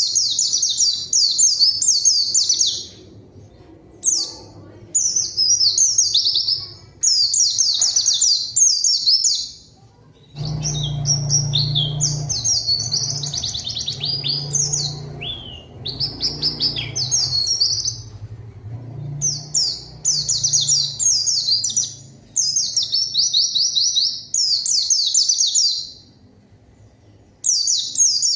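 White-eye (pleci) in full, vigorous 'gacor' song: fast, high-pitched chattering trills in bursts of one to three seconds with short pauses between. This is the kind of song used to call out a rival bird. A low hum sits under the song for several seconds in the middle.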